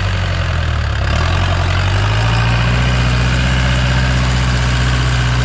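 Mahindra tractor's swapped-in four-cylinder diesel engine of about 100 HP running loud and steady under load while pulling a disc harrow through soil. The engine note lifts slightly about two seconds in, then holds.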